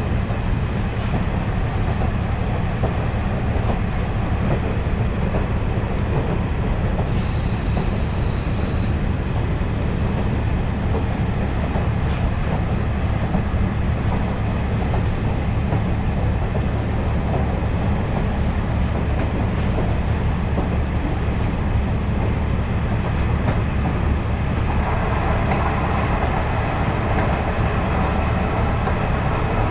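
KiHa 40 series diesel railcar running at speed, heard from inside the passenger cabin: a steady diesel drone and rumble of wheels on the rails. A brief high whine comes about seven seconds in, and a mid-pitched hum joins near the end.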